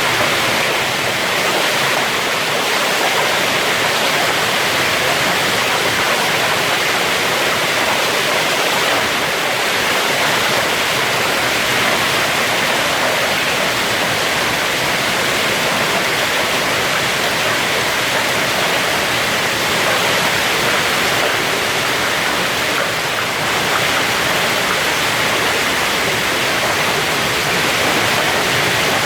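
Heavy hail and rain falling in a hailstorm: a dense, steady hiss of countless hits, with no single impacts standing out.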